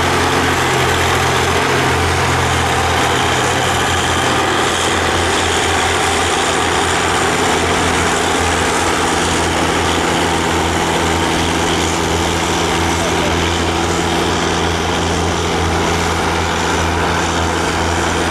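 Tractor engine running at a steady speed: an even, unchanging low drone with no revving.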